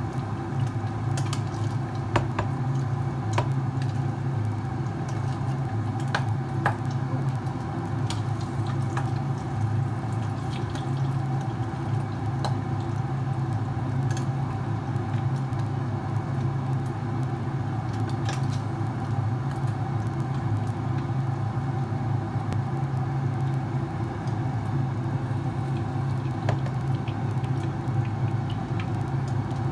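Squid frying in hot oil, with scattered crackles and pops over a steady low mechanical hum.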